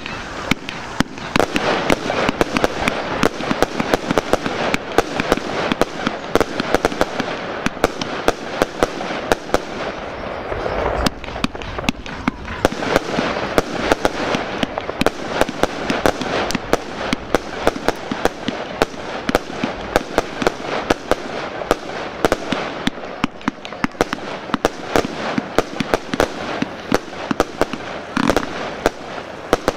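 Fireworks going off in quick succession: a dense, unbroken run of aerial-burst bangs and crackle, several reports a second.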